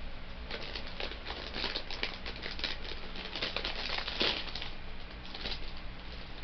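Bag of Rap Snacks chips crinkling as it is handled: a run of crackles starting about half a second in and dying away about a second before the end.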